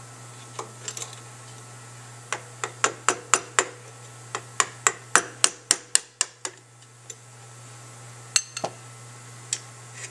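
Sharp metal-on-metal taps, about three or four a second, in two runs through the middle, then a few single clicks near the end. They come from driving the pull-rod seal retainer out of the cast AC fuel pump body from below.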